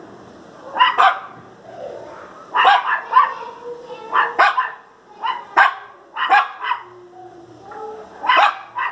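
Small dog, a miniature pinscher, giving play barks: short, sharp, high-pitched barks in quick clusters, often two close together, about a dozen in all.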